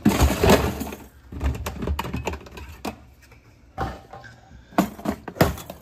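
Tackle boxes and fishing lures being handled and rummaged through: a burst of rustling and clattering at the start, then scattered clicks and knocks.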